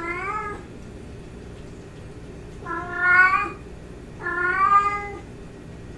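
Domestic cat meowing three times, each meow under a second long, with pauses of over a second between them.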